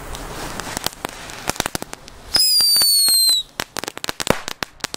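Original Fireworks Ground Mouse firecrackers going off: sharp crackling pops, then a loud whistle of about a second that falls slightly in pitch, then a quick run of sharp bangs. This is the whistler with a closing bang that the item is sold as.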